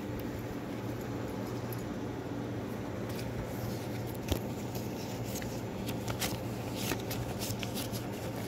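Paper banknotes rustling and fingers rubbing against the phone's microphone: a run of short scratchy clicks and rubs starting about three seconds in, over a steady low hum.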